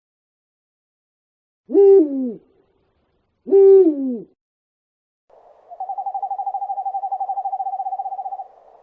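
Owl calls: about two seconds in, two hoots a second and a half apart, each sliding down in pitch at the end, followed by a fast, even trill lasting nearly three seconds.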